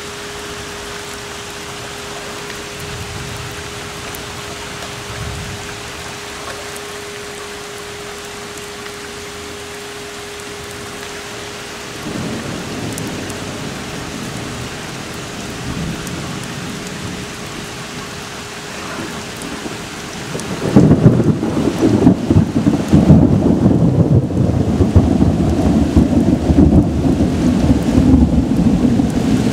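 Heavy thunderstorm rain falling steadily. About two-thirds of the way in, a loud, low, uneven rumble of the storm sets in and stays loud.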